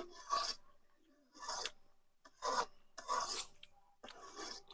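Five faint rasping scrapes, roughly a second apart.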